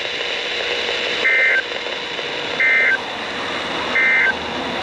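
Emergency Alert System end-of-message signal: three short bursts of SAME digital data tones, each a brief two-tone squawk, about 1.3 seconds apart. They sound over a steady background of radio static.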